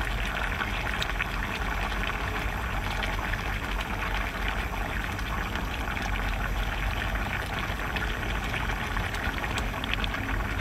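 Steady rushing, water-like noise at an even level, with a few faint clicks as crab shell is handled.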